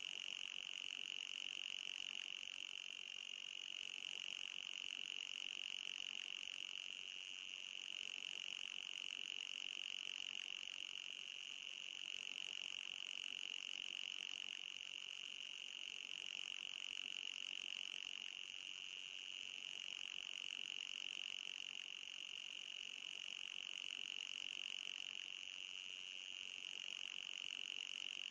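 Electronic anti-mosquito repellent tone: a steady, high-pitched whine with a fainter, higher band above it, unbroken throughout.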